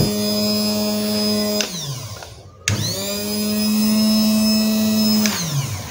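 Electric grass trimmer's motor running with a steady whine, switched off about a second and a half in and winding down, then switched on again and running steadily until it winds down again near the end. This is a test run of the freshly repaired and rewound motor, which runs properly.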